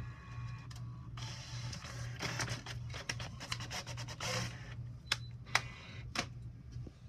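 HP Officejet all-in-one printer running: a dense run of mechanical clicking and rattling starts about a second in and lasts about three seconds, then a few separate clicks follow, over a steady low hum.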